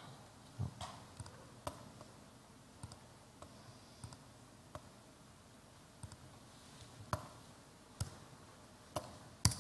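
Faint computer clicks, about a dozen at irregular intervals, from operating a computer to queue up a video clip; the loudest click comes near the end.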